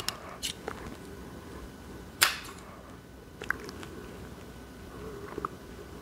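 Scissors snipping beading thread: a handful of small snips and clicks, the sharpest about two seconds in.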